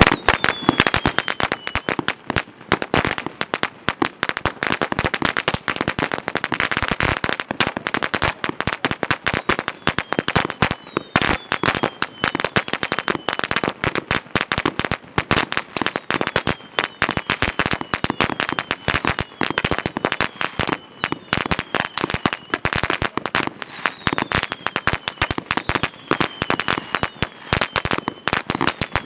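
A 1000-shot roll of paper firecrackers going off in one continuous rapid string of sharp bangs.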